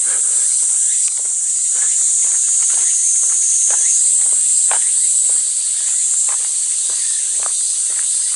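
Loud, steady, high-pitched chorus of cicadas in summer heat. Footsteps at a walking pace, roughly two a second, sound faintly beneath it.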